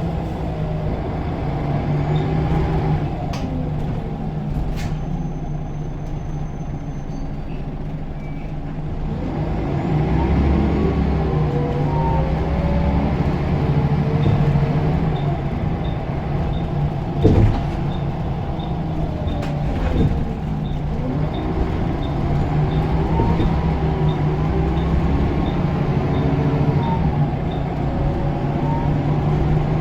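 Scania L94UB bus's 9-litre five-cylinder diesel pulling under load, heard from on board, with the turbo whistling. The engine pitch twice climbs and falls back as the semi-automatic gearbox changes up. There is a single thump about 17 seconds in, and a light regular ticking through the second half.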